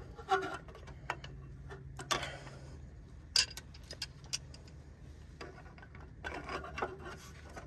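A handful of sharp metallic clicks and a short scrape, spaced a second or two apart, from a screwdriver and channel-lock pliers prying at the quick-connect fittings of a steel fuel filter, trying to make the stubborn release clips let go.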